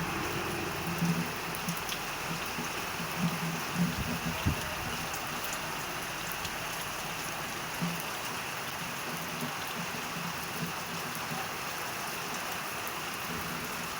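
Steady rain falling during a thunderstorm, with a few irregular louder knocks in the first several seconds.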